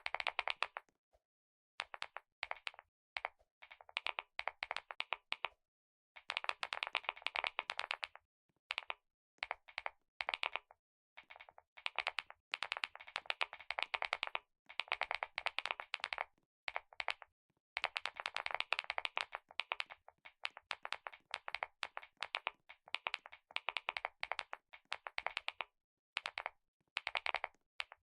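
Computer keyboard being typed on in quick runs of keystrokes, each burst lasting a second or few with brief pauses between.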